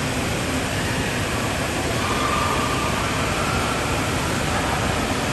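Steady rush of water from an indoor splash pad's fountains and spray jets falling into a shallow pool.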